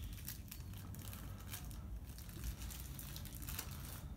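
Plastic medical packaging crinkling and rustling in gloved hands, with many small crackles and clicks, as a mucosal atomization device is handled and screwed onto a syringe.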